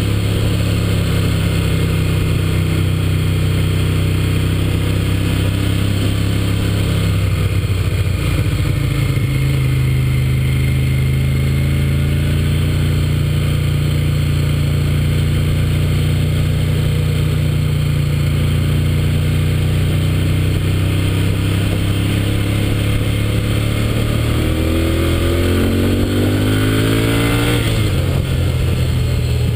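Onboard sound of a 2011 Moto Guzzi Griso 1200 8V SE's air-cooled 90-degree V-twin on its stock exhaust, running under steady throttle. The note shifts about eight seconds in, then from about 24 seconds it revs up under hard acceleration and drops back sharply near the end.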